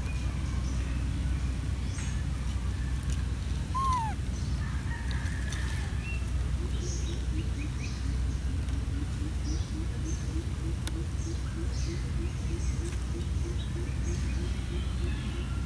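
Birds chirping outdoors over a steady low rumble, with one falling whistle about four seconds in and a low call repeated about three times a second from about six seconds on.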